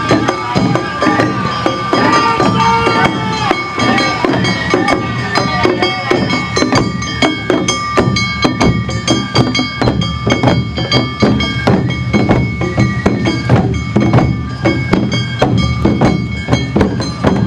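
Awa Odori festival band music: drums struck hard in a quick, even rhythm under high held tones and a melody line in the first few seconds.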